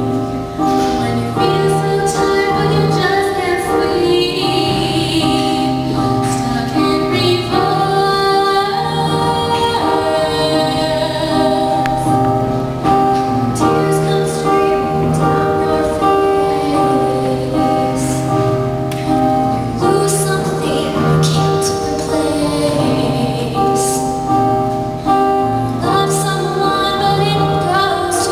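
Live show choir performance: a female soloist sings the lead at a microphone while a mixed choir sings backing harmonies, over piano accompaniment with a steady bass line. The lead passes to another girl's voice during the song.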